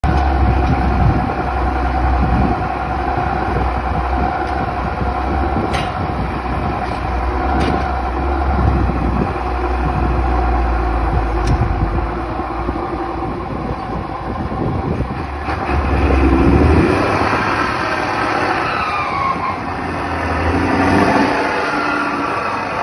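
Motor vehicle running with a loud, steady low rumble, the 'roncando' the title points to. The deepest rumble eases off about seventeen seconds in, and a falling whine follows a couple of seconds later.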